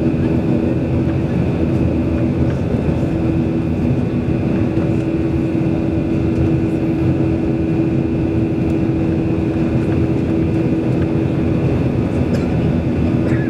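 Steady cabin noise of a Boeing 737-800 in flight, its CFM56 turbofan engines droning with a constant hum, heard from a window seat beside the engine.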